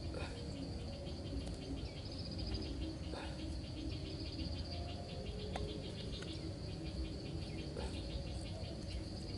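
Insects trilling steadily in a high, fast pulsing rhythm, with a few faint clicks over a low rumble.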